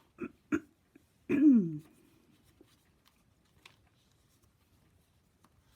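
A woman clearing her throat: two short coughs, then a longer throat-clearing sound that falls in pitch.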